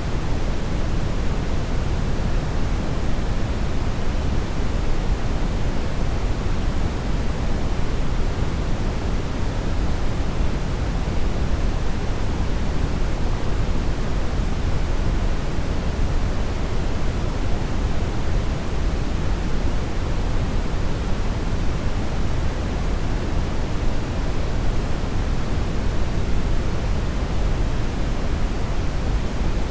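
Continuous brown noise, steady and unchanging, weighted heavily toward the deep low end and thinning out toward the top.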